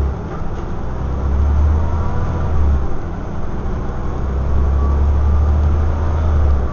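Scania OmniDekka double-decker bus's diesel engine heard from inside the saloon: a deep drone under power, easing off briefly about a second in and again just before the middle, then pulling strongly again, with road and cabin noise and a faint whine above it.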